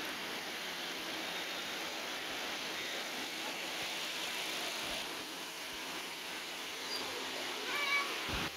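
Steady background hiss with no clear source. A brief high, chirp-like sound comes near the end.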